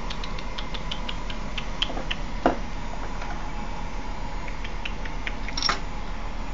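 Small, sharp clicks and taps from handling laptop parts during disassembly, with one louder knock about two and a half seconds in, over a steady background hiss and hum.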